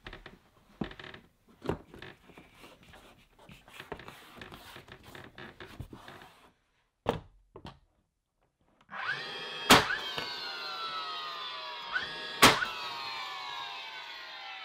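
Cordless brad nailer firing two brads into wooden trim, two sharp cracks nearly three seconds apart over a motor whine that slowly falls in pitch. Light taps and handling noises from the trim being pressed into place come first.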